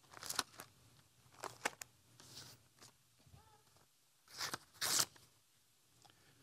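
Paper rustling and crinkling in several short bursts as a small folded paper packet is handled close to a headset microphone.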